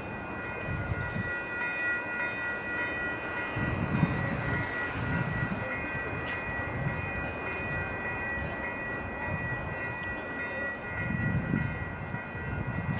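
Railroad grade-crossing warning bells ringing steadily as an Amtrak passenger train approaches, with low rumbling swelling and fading beneath.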